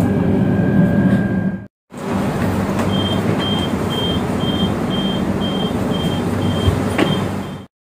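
Interior running noise of a KTM Komuter electric train with a steady high whine, breaking off briefly. Then a row of short high beeps, about two a second for some four seconds: the train's door warning signal at a station stop.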